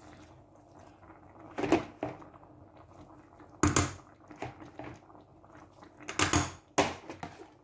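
About four short, separate knocks and clunks from kitchen things being handled: one soft knock, a louder clunk about halfway, and two more close together near the end, with little sound in between.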